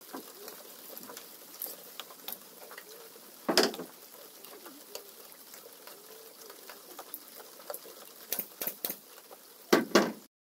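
Light rain pattering steadily, with scattered sharp knocks: a loud one about a third of the way in and a quick cluster near the end.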